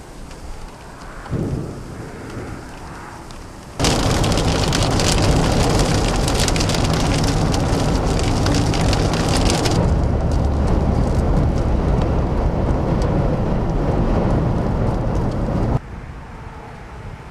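Severe thunderstorm wind with heavy rain, buffeting the microphone. About four seconds in, a much louder stretch of wind-driven rain starts abruptly, with a dense hiss of drops at first, and it stops just as suddenly near the end.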